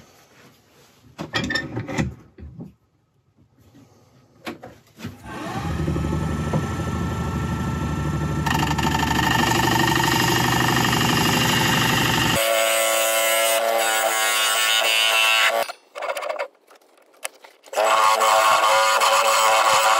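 Wood lathe starting up about five seconds in and running, with a turning tool cutting the spinning olive ash bowl. The sound changes abruptly twice and cuts out briefly a couple of seconds before the end, then resumes. A few short knocks from handling come before the start.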